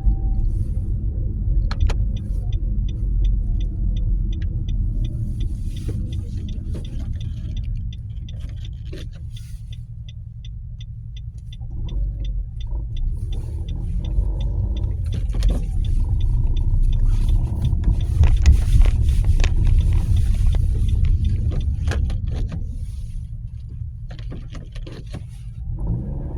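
Nissan Qashqai 1.2 running with a steady low rumble that swells louder about halfway through and eases off near the end. A light, even ticking at about three times a second sounds through the first half. This is the rattling noise the car has before it is fixed.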